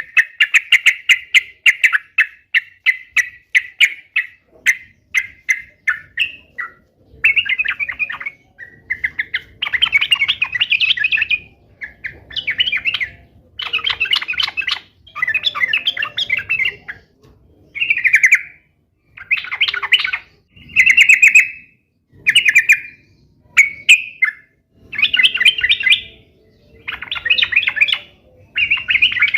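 Yellow-vented bulbul (trucukan) calling: a fast run of short chattering notes, then repeated loud bubbling song phrases of a second or so each, with short pauses between them.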